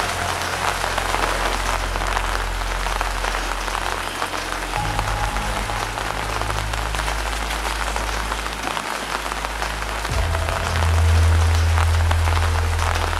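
Steady rain falling on paving, with a low sustained musical drone underneath that shifts to new notes about five seconds in and swells louder about ten seconds in.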